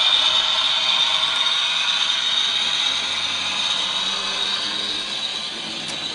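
Model diesel railcar running on layout track: a steady high motor whine with wheel-on-rail whirring and clatter, gradually fading as the train moves away.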